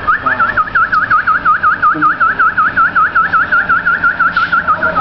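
A man whistling a fast warble, the pitch swinging up and down about five times a second.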